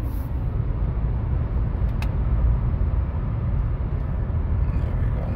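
Inside the cabin of a 2010 Acura TSX cruising at about 60 mph in fifth gear: a steady low rumble of road and engine noise, with a single click about two seconds in.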